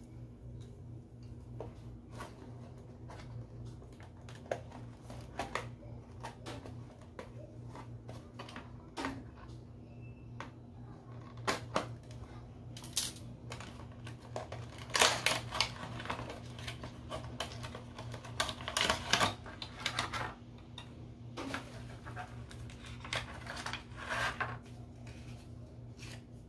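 Handling sounds from a phone unboxing: scattered light clicks and taps, with a few louder bursts of rustling in the second half, over a low steady hum.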